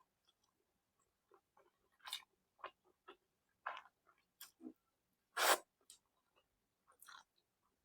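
Close-miked chewing and mouth sounds of a person eating: irregular short wet smacks and bites, the loudest about five and a half seconds in.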